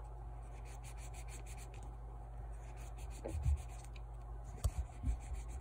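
Hand-polishing a door lock cover around its drilled hole: faint, repeated rubbing strokes over a steady low hum, with a few soft knocks about two-thirds of the way through.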